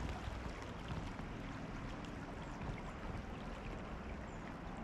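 Steady rushing of a river running high, with wind rumbling on the microphone.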